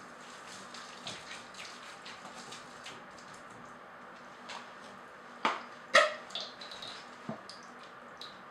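Hands squishing and kneading raw ground-beef meatloaf mix in a bowl, a run of small wet squelches. A little past halfway come two sharp clicks, the loudest sounds here, followed by a few lighter ticks.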